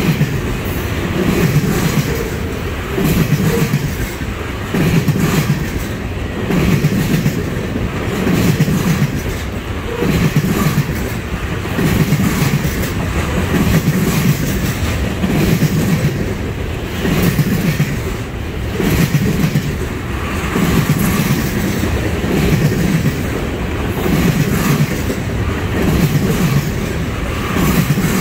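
Freight train of trash-container cars rolling past at close range: a steady rumble of steel wheels on the rails with a rhythmic clickety-clack, the groups of clacks coming about once a second.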